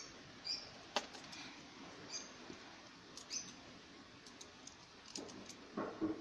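Faint handling sounds on a cardboard box: a sharp tap about a second in, then a run of light clicks as the blade of a snap-off utility knife is slid out.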